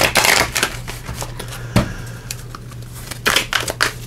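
A deck of oracle cards being shuffled by hand, the cards flicking against each other: a dense flurry of flicks at the start, a few single flicks, then a fast run of flicks near the end.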